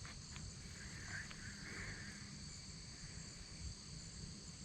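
Faint steady chorus of insects in high, even bands, over a low rumble, with a couple of small clicks in the first second or so.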